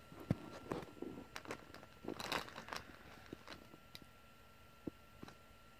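Faint crinkling and clicking of plastic as hands handle a small slime container and the clear plastic sheet under it, in short scattered crackles that thin out over the last couple of seconds.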